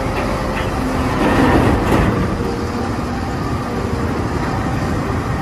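Toy rocket-launcher truck running: a loud, steady noisy rumble with faint tones through it, swelling slightly between one and two seconds in.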